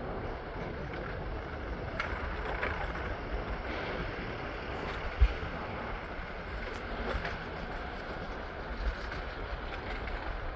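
Steady city vehicle traffic noise with low rumble. A brief low thump comes about five seconds in, and a smaller one near nine seconds.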